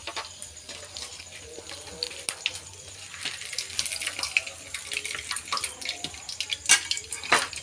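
Hot oil sizzling and crackling as battered food deep-fries in an aluminium pot, the crackle growing denser about halfway through. Long metal chopsticks knock sharply against the pot twice near the end.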